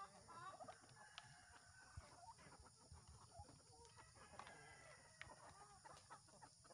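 Faint clucking of a flock of hens, mostly Rhode Island Reds, feeding at a trough, with scattered light taps of beaks pecking.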